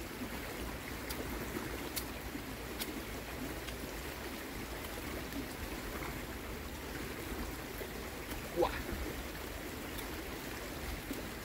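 Steady rush of a rain-swollen creek flowing, with a few faint clicks in the first few seconds and one brief sharp sound near the end.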